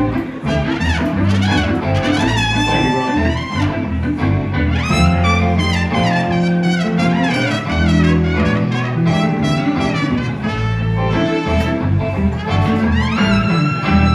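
Live trumpet solo with a band, its notes sliding up and down over a stepping bass line and electric guitar.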